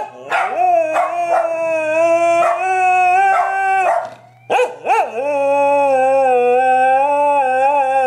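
Australian Shepherd howling in two long, drawn-out howls with a short break between; the second wavers in pitch near the end. The howling is set off by a passing ambulance siren.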